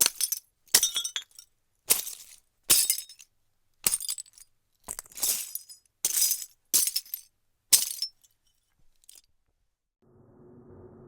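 Glass breaking: about a dozen separate sharp crashes with high, tinkling shards, spaced roughly half a second to a second apart, followed by a few faint clinks.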